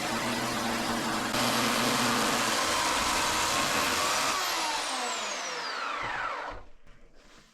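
Chainsaw cutting through a wet walnut log, running steadily and getting louder a little over a second in. Near the end its whine falls in pitch as the saw winds down and stops.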